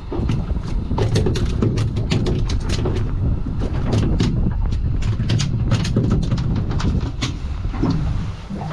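Rapid, irregular clicks and taps over a steady low rumble, from handling a freshly landed crappie on an aluminium boat's diamond-plate deck.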